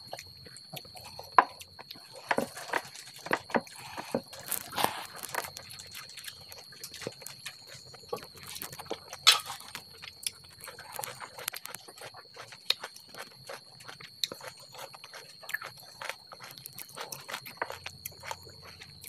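Close-up eating by hand: wet chewing and lip smacking on mouthfuls of rice and dal, with sharp little clicks of fingers mixing rice on a steel plate, in an irregular series. A faint steady high-pitched tone runs underneath.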